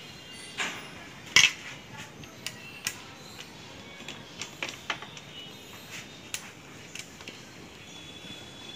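Scattered light metallic clicks and clinks of washers, a nut and a long mounting bolt being handled and fitted into a motorcycle handlebar end for a hand guard. The loudest click comes about a second and a half in.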